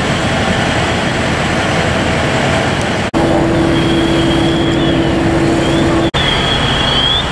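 Fire apparatus engines running, a loud steady drone. A steady mid-pitched hum joins about three seconds in, and the sound drops out briefly twice, at edits.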